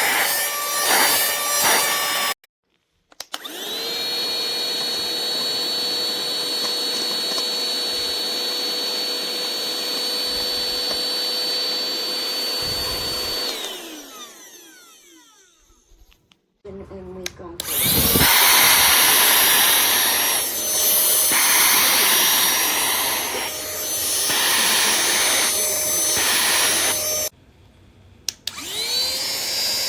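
Cordless handheld vacuum's motor running with a steady high whine, switched off and on several times: each start-up is a rising whine, and one switch-off winds down over a couple of seconds to silence. In the later run the sound is rougher and keeps changing in level, as when the nozzle is working against a surface.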